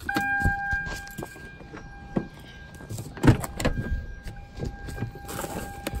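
Hand tools being rummaged through on a vehicle's floor: scattered knocks and metal clinks, the loudest about three seconds in, over a faint steady high tone.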